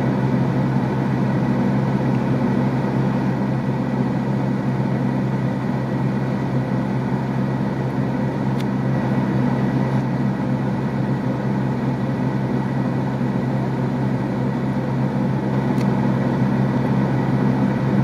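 A car engine idling steadily, heard from inside the cabin as a constant low hum.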